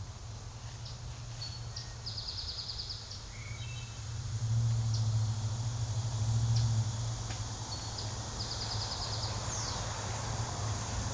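Small birds calling: two short, rapid high trills and a few single chirps, over a steady low hum that grows louder about four seconds in.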